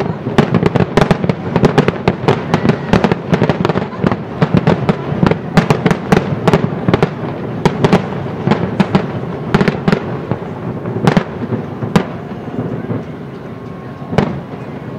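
Aerial fireworks: a rapid string of booms and crackles for about the first ten seconds, then thinning to a few single bangs with gaps between them as the display dies away.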